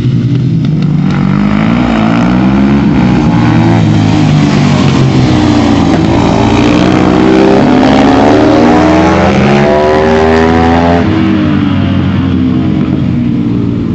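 Supermoto motorcycle engines revving up and falling back through the gears as bikes ride round the track, with more than one engine note overlapping; loudest near the middle.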